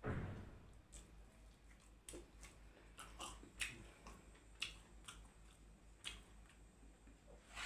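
A person chewing food close to the microphone: faint, with scattered short wet clicks and smacks of the mouth, and a louder noisy sound right at the start.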